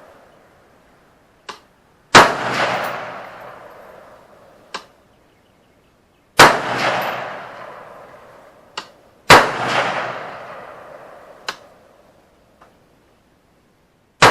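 Ruger AR-556 rifle firing four single shots a few seconds apart, each crack followed by a long echoing tail, the last right at the end. Fainter, shorter cracks sound in between them.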